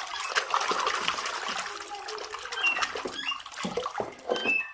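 Water splashing and sloshing with small knocks as a muddy plastic toy vehicle is scrubbed clean by hand in water.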